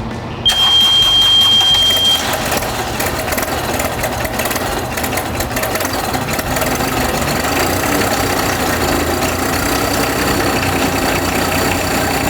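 A single steady high-pitched beep lasting under two seconds, then an engine running steadily at idle.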